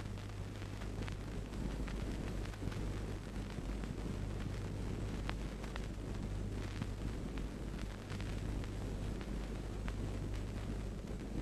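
Grass fire crackling, with scattered sharp pops over a steady low hum and hiss.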